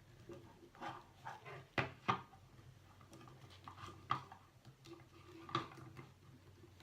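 Hands handling small plastic toy pieces and fitting one onto the doll set: scattered light clicks and knocks, the sharpest a pair about two seconds in.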